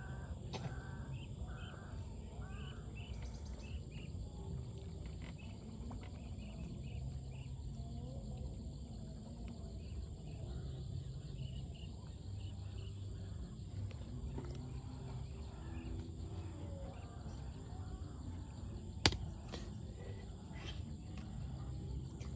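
Outdoor ambience: a steady high-pitched insect drone, with short repeated bird chirps in the first few seconds and a low rumble underneath. One sharp click stands out a few seconds before the end.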